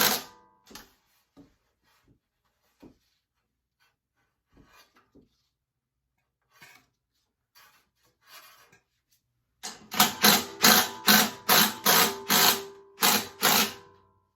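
Ratchet wrench tightening a bolt: a few scattered clicks, then a quick, even run of about a dozen ratcheting strokes over the last few seconds.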